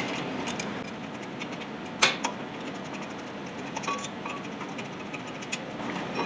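Socket ratchet clicking and small metal clinks as the 17mm bolts of a brake caliper bracket are worked loose and removed, with one sharp metal knock about two seconds in and a few short ringing clinks later.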